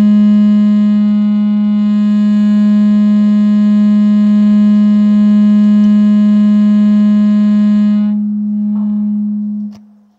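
Sound-system feedback: a loud, steady low howl with many overtones that holds for about eight seconds and then fades out near the end.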